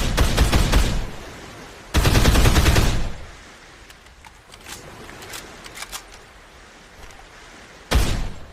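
AKS-74U carbine (5.45×39 mm) firing on full auto in three bursts: the first about a second long at the start, another about a second in length from two seconds in, and a short one near the end, with a few faint clicks in the lull between.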